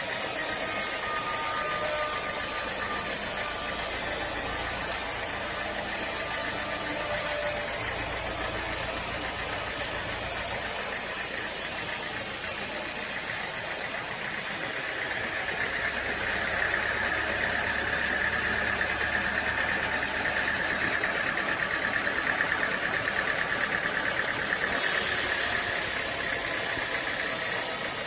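Sawmill machinery running: a steady engine noise, with a high, steady whine through the middle. The sound changes abruptly twice.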